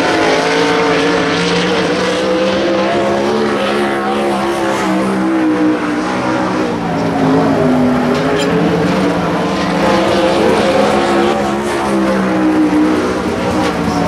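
Several vehicle engines running at once, their pitch wavering up and down unevenly.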